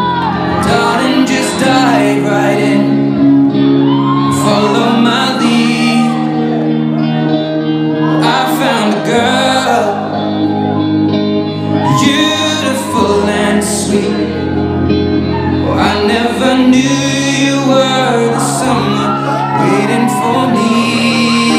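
A song on the soundtrack: singing over instrumental backing, with long held bass notes that change every few seconds.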